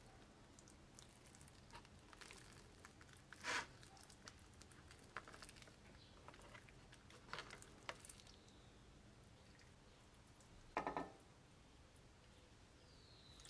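Faint handling sounds of raw poultry breast being rolled up by hand: soft squishes and a few light knocks, the two loudest a few seconds in and near the end.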